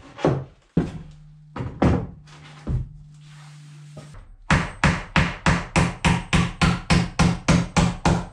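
Hammer blows on pine log siding: a few scattered knocks as the board is set, then about four seconds in a steady run of about four hammer strikes a second, nailing the board to the shed frame.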